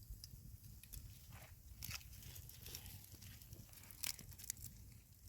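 Faint, scattered crunching and rustling, with a few sharper clicks about two and four seconds in, over a low steady rumble.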